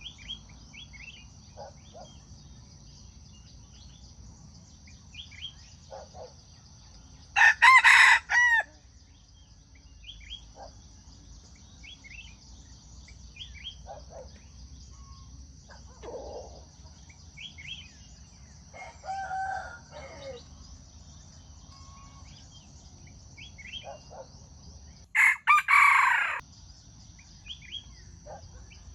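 A rooster crows twice, loud and short, about eighteen seconds apart, with small bird chirps between and a steady high-pitched hiss behind.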